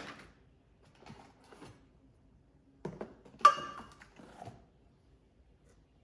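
Unpacking sounds: a few soft rustles and knocks of packaging and parts being handled, then two sharper knocks about three and three and a half seconds in, the second a clink with a brief ring.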